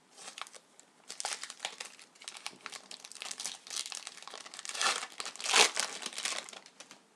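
Plastic trading-card pack wrapper crinkling and tearing as a hockey card pack is opened and handled, a dense run of crackles with the loudest burst about five and a half seconds in.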